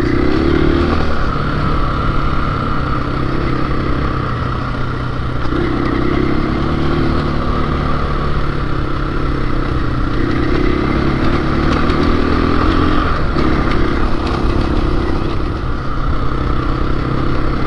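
KTM dual-sport motorcycle engine running while riding on a dirt trail, swelling and easing off with the throttle every few seconds.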